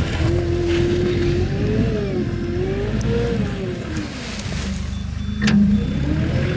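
Hitachi ZW40 wheel loader's diesel engine and hydraulics working, with a whine that rises and falls as the bucket lifts and dumps a load of snow. A sharp clunk comes about five and a half seconds in, and from about five seconds the loader's reversing beeper starts sounding in short beeps.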